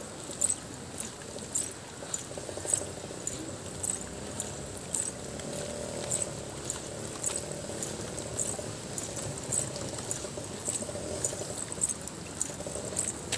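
Muddy water running along a roadside earth channel, a steady rushing flow. Over it come short, sharp high chirps or ticks, about one every half second.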